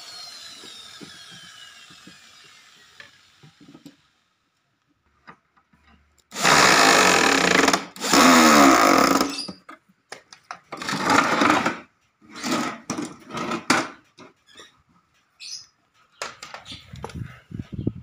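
Corded electric drill driving screws into a wooden box. A whine winds down over the first few seconds; after a short silence come two long runs of over a second each, about six and eight seconds in, then a string of shorter bursts.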